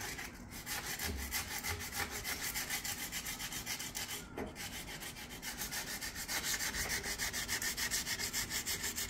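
Sandpaper, 80 grit, rubbed by hand along a wooden axe handle in quick back-and-forth strokes, about five a second, a dry rasping scuff with a brief softer stretch in the middle.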